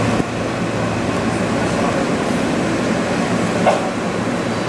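Steady running rumble and hiss heard inside an R160 subway car as the train rolls into a station, with a faint click about three-quarters of the way through.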